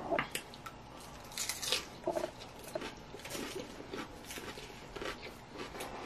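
Close-miked chewing of a mouthful of crisp lettuce salad: irregular wet crunches and crackles, a few louder bites early on and around two seconds in.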